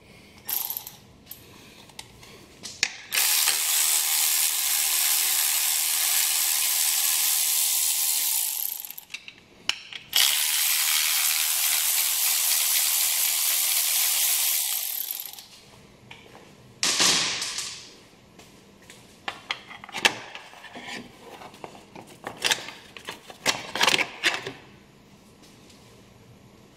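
Cordless ratchet spinning in two long runs of about five seconds each, backing out the bolts of a car's engine belt cover. A string of sharp clicks and knocks follows as the cover's parts are handled.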